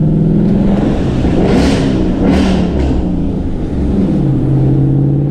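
2016 Ford Mustang GT's 5.0-litre V8 through a Roush exhaust with an H-pipe, heard from inside the cabin. It runs steadily, then revs up and down for a couple of seconds with two short hissing rushes, and settles back to a steady cruise near the end.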